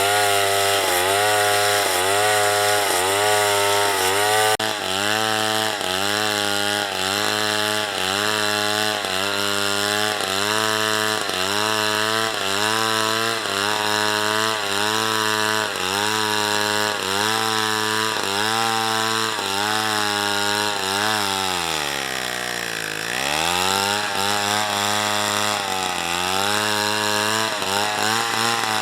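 Two-stroke chainsaw cutting through wood at high revs. The engine pitch dips and recovers in a steady rhythm, a little more than once a second, as the chain loads up in the cut. About 22 seconds in it bogs down deeply and then picks back up.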